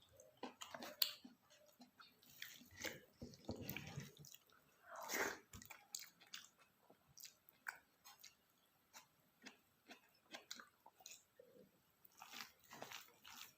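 Close-up mouth sounds of a person chewing and biting food, with irregular wet clicks and crunches and a louder burst of chewing about five seconds in.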